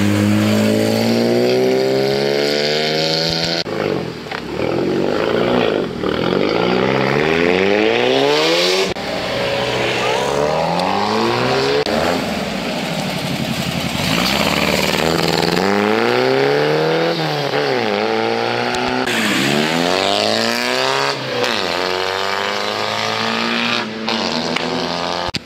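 Car engines revved hard and accelerating away, one after another. The pitch climbs, drops back and climbs again many times.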